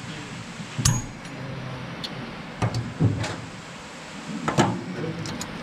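Several separate metallic clinks and knocks as pliers and loose parts work against the steel finger-wheel shaft of a New Idea 323 corn picker's husking bed.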